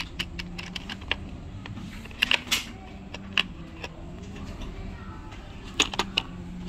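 Metal sockets and tools in a moulded plastic socket-set case clinking and tapping as they are handled. Scattered sharp clicks, with a quick cluster about two seconds in and another near the end.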